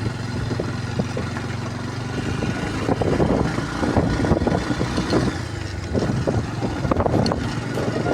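Motorcycle engine running steadily while riding, with irregular knocks and rattles from the rough road.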